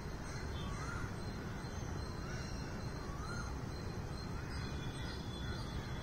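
A bird calling a short rising-and-falling note again and again, about once a second, over a steady low background rumble.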